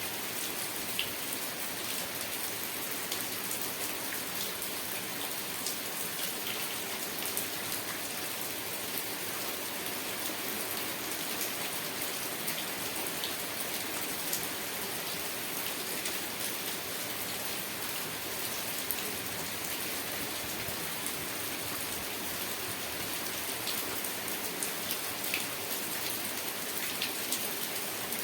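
Steady rain falling, an even hiss with many small scattered drop ticks and no change in strength.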